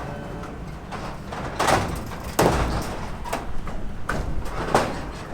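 A few irregular knocks and bangs over a low rumble, the loudest about two and a half seconds in.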